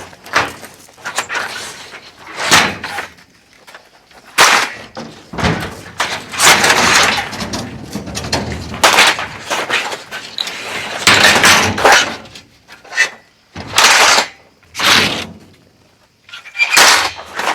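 A series of irregular loud knocks and clattering, with longer scraping or rustling noises lasting a second or two in between.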